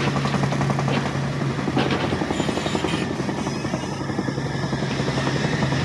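An engine running steadily, with a constant low hum and a fast, even pulsing.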